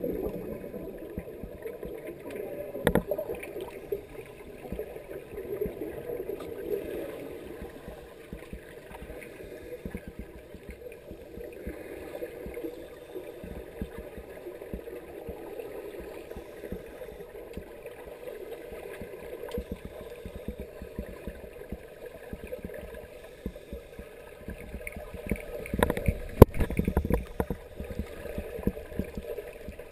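Muffled underwater sound heard through a camera housing: scuba divers' exhaled air bubbling up from their regulators in a steady crackling wash. A few sharper knocks come about three seconds in and near the end.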